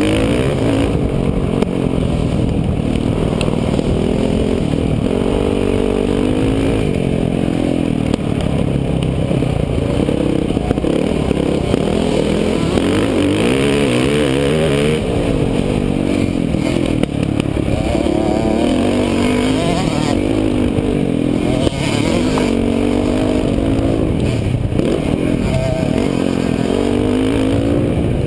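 Dirt bike engine heard up close from the bike itself while ridden hard on a dirt track, its pitch rising and falling over and over as the rider works the throttle and gears.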